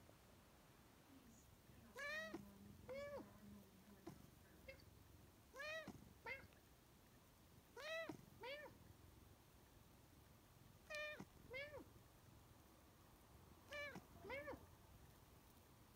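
Siamese cat meowing in pairs, five times over: each time two short meows, rising then falling in pitch, about half a second apart. The cat is asking for more kibble.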